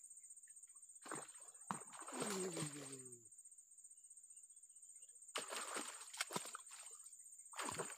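A hooked fish splashing and thrashing at the water's surface as it is reeled in to the bank, in several short broken bursts about five and a half to six and a half seconds in, with one more splash near the end. A short wordless voice sound with falling pitch comes about two seconds in.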